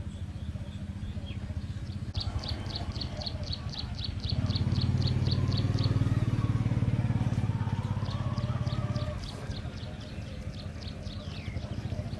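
A motor's low, steady hum swells louder for about five seconds in the middle and then eases back. Over it come runs of rapid high chirps, about nine a second, first near the start and again through the second half.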